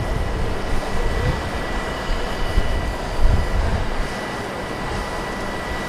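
Mobile crane's engine running steadily while it holds a diesel locomotive aloft, with a thin steady high whine over it. Irregular low rumbles of wind buffet the microphone.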